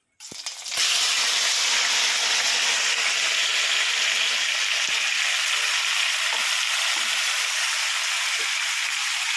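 Marinated chicken pieces dropped into hot oil in a kadai, setting off a loud, steady sizzle that starts suddenly just after the beginning and keeps going as the chicken fries.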